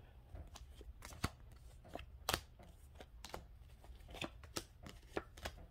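Tarot cards being shuffled and handled: a faint run of irregular soft clicks and taps, a few sharper than the rest.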